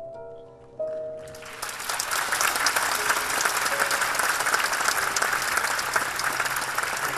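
The last held notes of live tango music fade out, then a theatre audience breaks into applause about a second in, which builds and keeps going.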